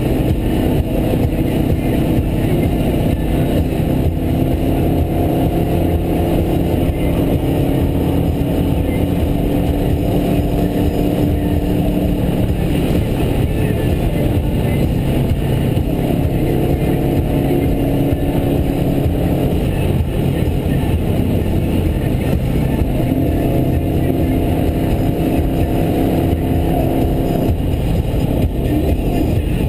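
Subaru Forester XT's turbocharged flat-four engine and tyre noise heard from inside the cabin while cruising at highway speed, the engine note wavering a little in pitch.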